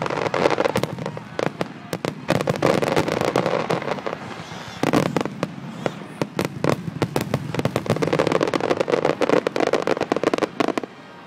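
Fireworks finale barrage: aerial shells bursting in rapid succession, many reports a second, overlapping with crackle. The barrage stops abruptly just before the end.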